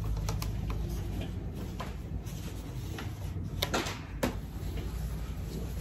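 Quiet handling noise: a few light clicks and taps with soft rustling as pieces of quilting fabric are picked up and set down on a table, over a low steady hum.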